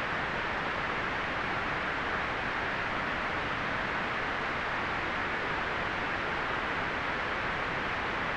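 Steady white noise: an even, unchanging hiss, strongest in the upper-middle range.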